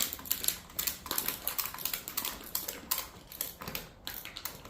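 Rapid, irregular clicks and light clatter from hands working tools and parts underneath.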